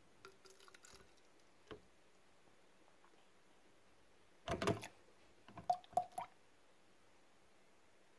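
Milk poured from a plastic jug into a plastic baby bottle: a few faint taps at first, then a short burst of splashing about halfway in, followed by a few brief glugs.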